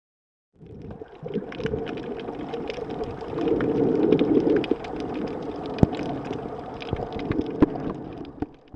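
Underwater sound picked up by a camera beneath the surface: a muffled, steady rush and gurgle of moving water with scattered sharp clicks and knocks. It starts abruptly about half a second in and cuts off just before the end.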